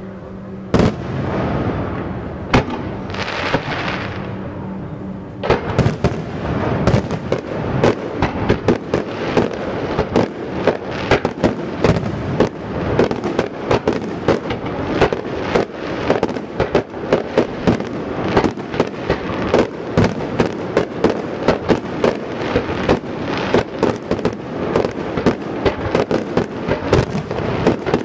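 Fireworks going off: two single loud bangs in the first few seconds and a brief hiss, then a rapid, continuous run of bangs and crackles, several a second.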